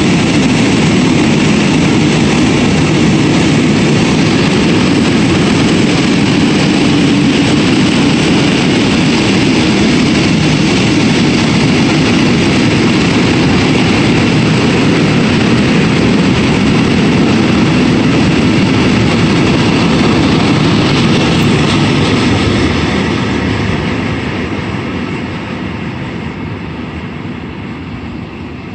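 Freight train of rail tank wagons passing at speed: loud, steady noise of wheels running on the rails. The noise fades over the last five seconds or so as the end of the train passes and moves away.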